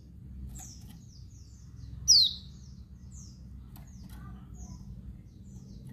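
Female white-eye (pleci, Bali dakun type) giving a series of short, high, falling chirps, several a second, with one much louder chirp about two seconds in. This is the female's call that draws a response from male white-eyes.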